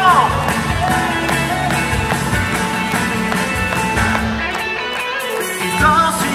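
Live pop song: a male singer's voice through a handheld microphone and PA speakers over instrumental accompaniment. The vocal line is heard at the start and again near the end.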